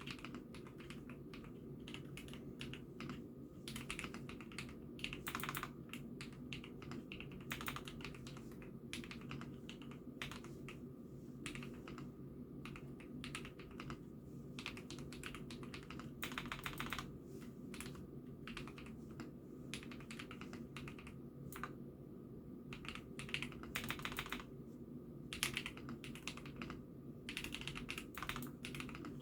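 Typing on an IKKI68 Aurora mechanical keyboard: a continuous, irregular run of keystroke clacks, with a steady low hum underneath.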